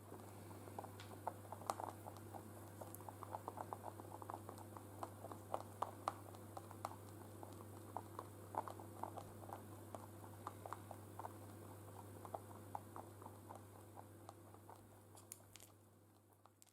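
A rabbit chewing, a faint run of rapid, irregular crunching clicks over a steady low electrical hum. The clicks thin out near the end.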